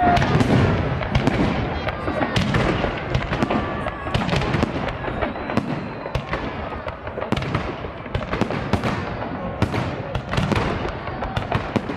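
Holiday fireworks salute: a dense, unbroken run of sharp bangs and crackles from bursting aerial shells, several a second.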